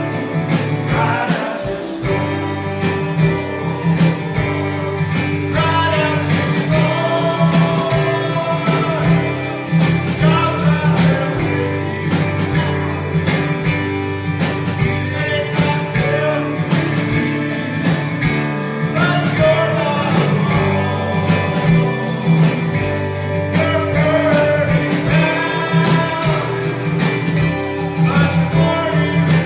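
Live church worship band playing a steady-beat song led by guitar, with a wavering melody line over it.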